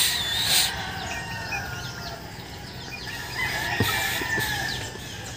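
Chickens calling: a rooster crowing and hens clucking, with many short high chirps throughout.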